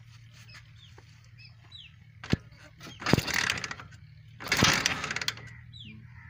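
A sharp click about two seconds in, then two short bursts of cranking a second or so apart as the 150cc loader rickshaw engine is turned over for a start. It does not catch, and each burst falls away. Small birds chirp throughout.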